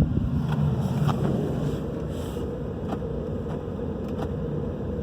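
Ford F-150 engine idling with a steady low rumble, wind on the microphone, and a few faint clicks as the frozen door locks are tried without any response.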